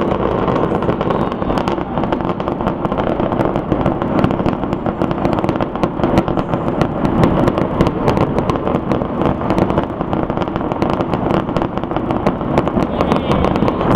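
Aerial fireworks display going off without pause: a dense run of booms and crackling pops, many in quick succession.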